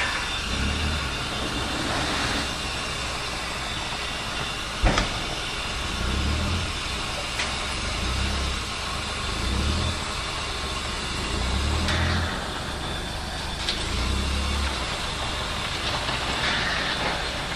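Class 8620 steam locomotive No. 8630 standing and hissing steadily while being serviced. A single sharp knock comes about five seconds in.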